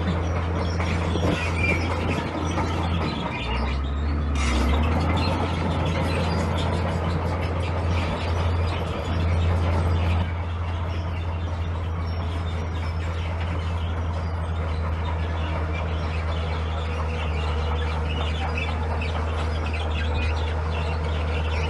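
Heavy diesel earthmoving machinery running steadily with a low drone. The engine note drops briefly about four seconds in and shifts again about ten seconds in, with scattered high chirps over it.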